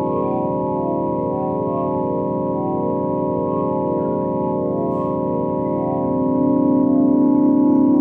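Synthesized organ-like space drone: a dense chord of sustained tones with a faint repeating warble, growing louder about six seconds in. It is offered as the 'sound' of Jupiter's moon Amalthea.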